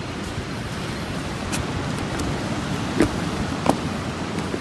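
Steady rush of ocean surf and wind on the beach, with two short sounds about three seconds in.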